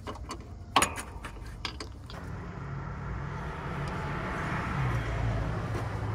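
A few sharp metal tool clinks, then a steady low engine hum that builds up over a few seconds and holds.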